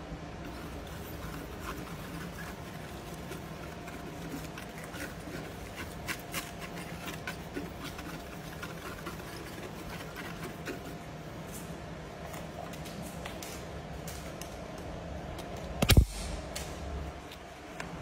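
Wire brush scrubbing across a gloss-black paint-protection-film-covered wing mirror cap, a string of scattered short scratchy clicks over a steady hum. One loud knock about sixteen seconds in.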